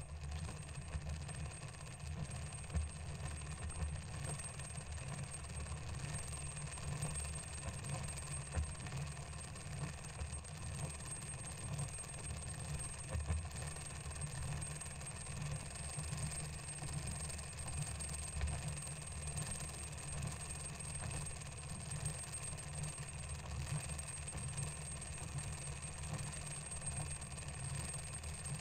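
Gear-mechanism sound effect: a steady low mechanical rumble with faint metallic clinks, as of meshing steel gears turning.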